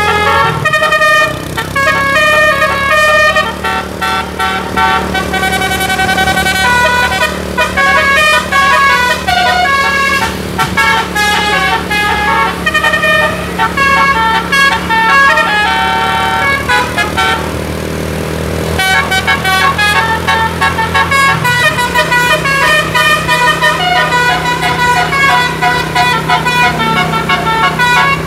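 Bus telolet musical air horn playing a fast melody of short, changing notes, with the bus engine running steadily underneath. The tune breaks off for about a second about two-thirds through, where a brief hiss is heard, then carries on.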